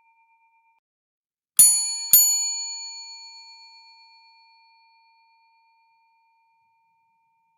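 Bell sound effect: a bell struck twice, two dings about half a second apart, each ringing out with a clear metallic tone and fading away over a few seconds.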